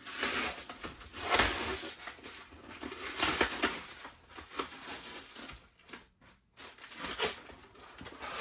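Cardboard boxes and packaging being handled and rummaged through, in noisy rustling bursts with a few knocks.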